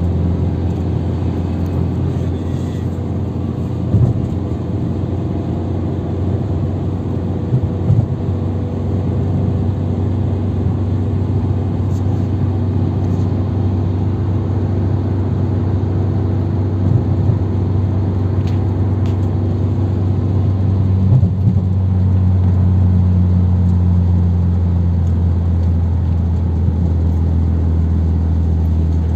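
Car engine and road noise heard from inside the cabin while driving on a highway: a steady low drone, with a few brief thumps around four and eight seconds in.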